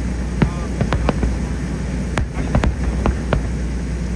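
Aerial firework shells bursting in the sky: a rapid, irregular run of sharp bangs, two or three a second, over a steady low rumble.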